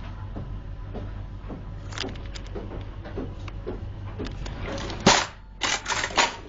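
Kitchen work noises: light clicks and knocks over a steady low hum, then four loud sharp noises in quick succession near the end.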